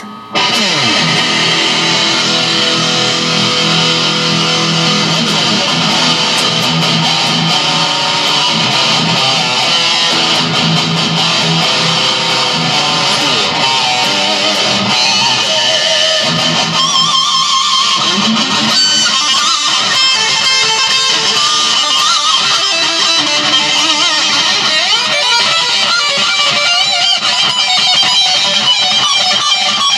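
Electric guitar played through a Boss Metal Zone MT-2 distortion pedal into a Marshall MG15 DFX practice amp: heavily distorted metal riffs and long sustained notes with vibrato and pitch bends, starting abruptly about half a second in.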